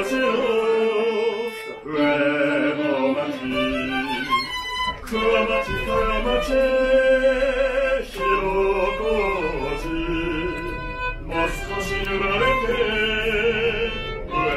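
Live violin playing a slow melody with vibrato inside a train carriage. A low, steady rumble from the running train comes in underneath a few seconds in.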